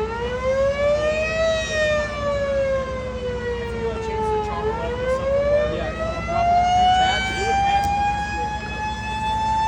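Mini warning siren sounding one steady wailing tone that rises, sinks slowly, then climbs again from about halfway through and holds at its highest pitch near the end.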